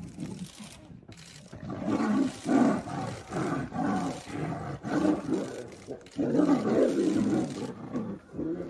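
A tiger fighting another animal: a rapid series of short, loud roars and snarls. They start about two seconds in and are loudest shortly after that and again around six and a half seconds in.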